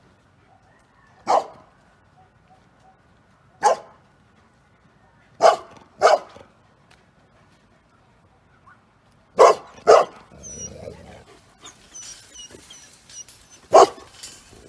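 Bernese mountain dog barking: seven short single barks a few seconds apart, two of them coming in quick pairs. They are warning barks at its own owner, whom it does not recognise.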